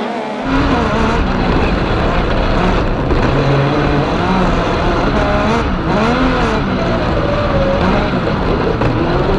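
RSK Kartcross's Yamaha MT-09 three-cylinder motorcycle engine at racing speed, heard from on board, its pitch rising and falling repeatedly as the driver revs it through the corners. It gets louder about half a second in.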